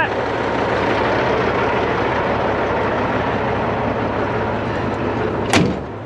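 Heavy diesel engine running steadily close by, with one sharp click about five and a half seconds in.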